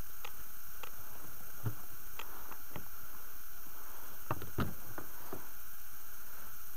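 About ten short knocks and light splashes, scattered and loudest a little past halfway, from a hooked pike being played on a spinning rod beside a small boat, over a steady hiss.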